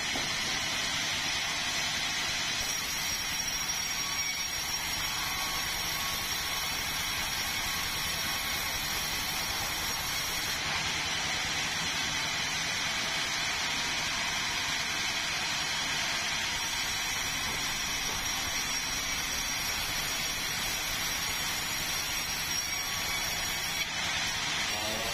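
Sawmill saw running steadily: a constant loud mechanical rush with a thin high whine over it.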